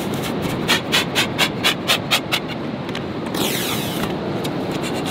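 Metal clam gun being worked down into wet beach sand in a quick run of about eight rhythmic pulses, then a short sucking rush as the tube and its sand core are pulled up a little past halfway. A steady rushing noise runs underneath.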